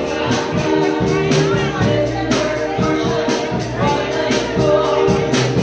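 Live church band music with held keyboard chords and a steady drum beat, voices mixed in underneath.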